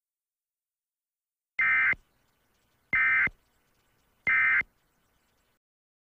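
Emergency Alert System end-of-message data bursts: three short, identical digital bursts a little over a second apart. They signal that the alert is over.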